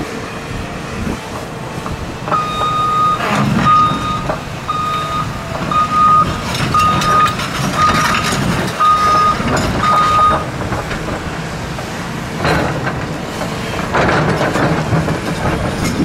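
Caterpillar hydraulic excavator running, its backup alarm beeping eight times at about one beep a second and then stopping about ten seconds in, with a few loud clanks from the machine working.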